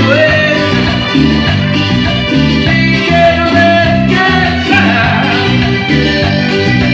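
Latin American dance music from a one-man band, loud, with keyboard, guitar sounds and singing over a steady beat.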